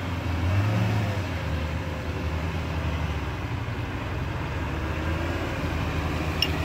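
A UAZ off-roader's engine runs steadily as it crawls through deep swamp mud toward and alongside, with a brief rise in engine note about half a second in.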